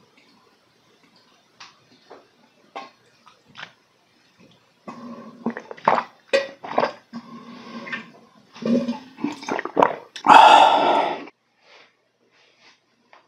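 Gulping and swallowing as a 1.5-litre bottle of Cocopalm grape drink, with its coconut-jelly pieces, is chugged in one go. Faint swallows and clicks at first, louder gulps from about five seconds in, then a loud breathy exhale about ten seconds in as the drink is finished.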